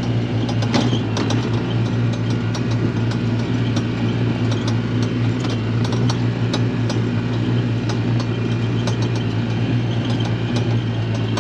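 A vehicle engine running steadily at low speed, with frequent small clicks and rattles throughout.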